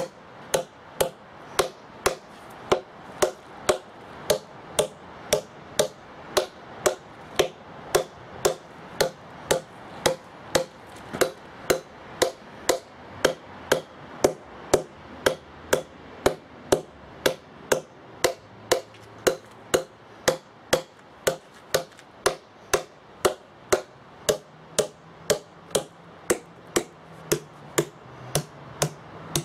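Hand hammer striking a row of steel wedges and feathers in a Pennsylvania bluestone slab, working along the line to drive them and split the stone. Steady ringing metal clinks, about two a second.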